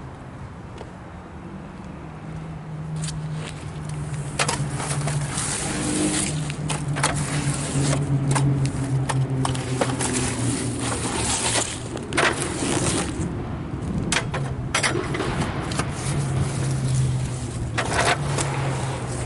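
Small gas engine of a portable bandsaw sawmill running steadily, picking up about two seconds in, with repeated sharp knocks and scrapes of wood and metal over it.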